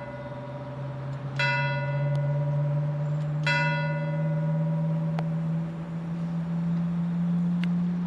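Church bell tolling, struck about every two seconds, each stroke ringing on with many overtones. A low steady drone rises slowly in pitch underneath.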